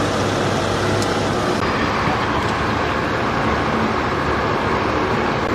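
Steady, loud running of heavy vehicle engines, with no breaks. The sound changes abruptly about a second and a half in, at an edit.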